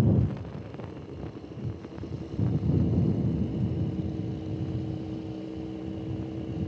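Motorcycle engine running at low road speed with wind noise on the helmet-mounted microphone. It grows louder about two seconds in, then holds a steady note.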